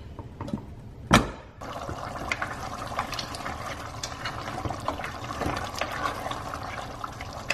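A single sharp clank about a second in as the aluminium pressure cooker's lid comes off. Then thick mutton curry gravy sloshes and bubbles with many small wet clicks as a spatula stirs it in the open cooker.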